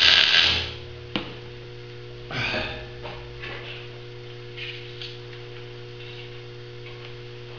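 MIG welding arc crackling, cutting off about half a second in. After that a steady electrical hum, with a sharp knock about a second in and a short scrape around two and a half seconds in.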